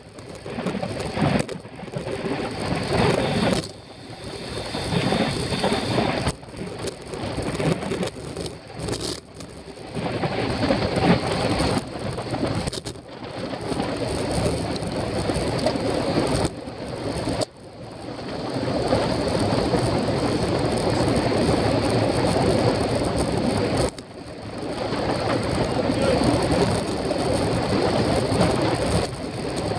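Wind rushing over the microphone of a camera mounted on a racing bicycle at speed, swelling and falling, with several brief sudden dips.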